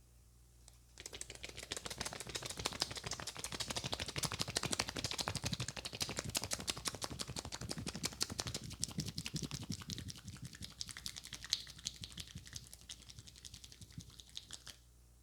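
A barber's hands working fast on a person's head and hair in a head massage: a quick, dense run of close-up taps and scratchy crackles with some duller thuds. It starts about a second in and stops just before the end.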